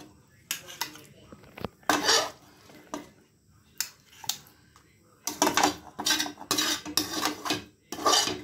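Metal spoon scraping cooked tomato chutney out of a metal frying pan and knocking it into a steel mixer jar: scrapes and clinks, spaced out at first, then coming thick and fast from about halfway through.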